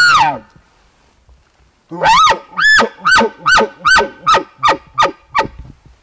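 Elk bugle call blown in imitation of a bull elk tending cows. The tail of a long, high bugle slides down and fades in the first half second. After a pause comes a run of about ten short chuckles, each falling in pitch and coming slightly faster toward the end.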